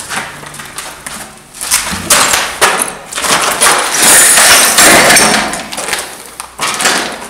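Repeated knocks and crunching, scraping noises as something is broken open by hand, loudest about two seconds in and again around four to five seconds in.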